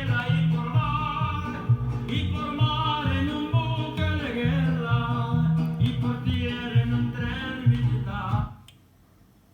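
A vinyl record playing on a Dual 1019 turntable: a song with singing over guitar and a bass line. The music cuts off suddenly about eight and a half seconds in, leaving only faint background noise.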